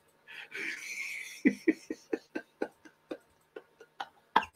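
A long breathy exhale, then a run of quick computer-mouse clicks, about three or four a second, stepping up an ingredient amount in the recipe software.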